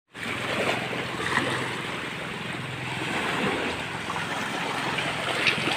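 Shallow sea water lapping and splashing against a wooden outrigger boat as a man wades alongside and moves it, with a faint low steady hum underneath.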